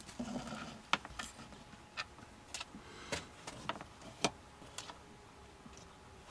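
A string of about nine irregular light clicks and taps from hands working a circuit board and test clip on a wooden bench.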